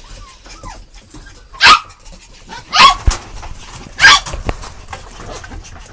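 Puppies yipping while they play: three short, sharp, high barks about a second apart, with light scuffling and clicking between them.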